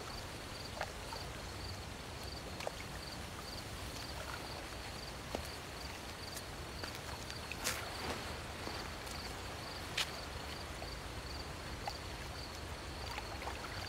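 Night ambience: a cricket chirping steadily at an even beat of about two chirps a second over a faint hiss, with a few soft clicks here and there.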